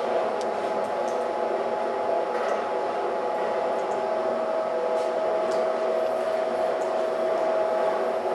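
Stainless-steel potato-chip processing machine running with a steady electric motor hum and a constant whining tone, with a few faint ticks.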